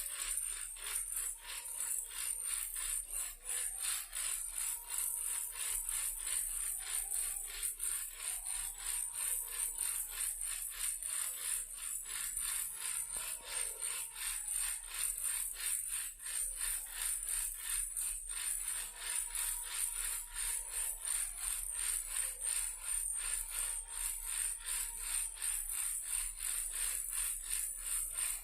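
A toy car shaken as a baby rattle, rattling continuously in a fast, steady rhythm.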